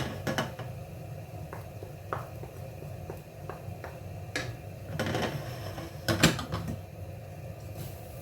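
A cooking utensil clinking and scraping against a pan as the contents are stirred, in scattered knocks with a busier stretch near the end, over a steady low hum.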